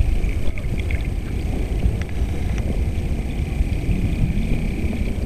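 Muffled underwater sound picked up by a camera in a swimming pool: a steady low churning rumble of water, with a faint steady high whine and a few small clicks.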